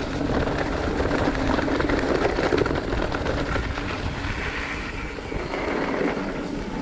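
Viathon M.1 carbon hardtail mountain bike rolling along a dirt trail strewn with dry leaves: continuous tyre rumble over dirt and leaves, with many small knocks and rattles from the bike over the bumps.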